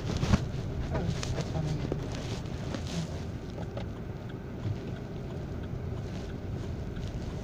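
Steady low road and engine noise heard inside a moving car's cabin, with a few faint knocks in the first few seconds.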